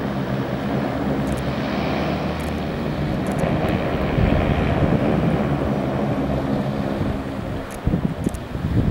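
Twin-engine turboprop seaplane, a DHC-6 Twin Otter on floats, running its engines on the water with a steady propeller hum. Near the end, gusts of wind buffet the microphone.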